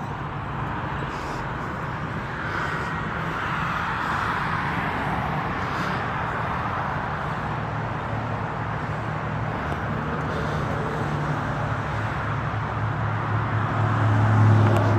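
Road traffic noise: the hiss of cars passing swells and fades a few times over a steady low engine hum, and the hum grows louder near the end.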